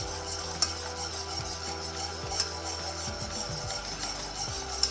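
Wire whisk stirring a boiling butter, cream and allulose candy syrup in a metal saucepan: a steady bubbling sizzle with a few sharp clinks of the whisk against the pan. The syrup is being cooked toward 290°F.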